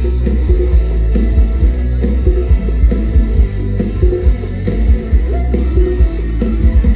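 A Thai luk thung band playing live and loud through the stage speakers, with heavy bass and a steady drum beat.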